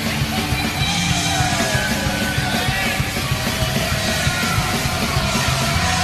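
Hockey goal song: loud rock music with a driving beat, and a voice starting to sing or shout about a second in.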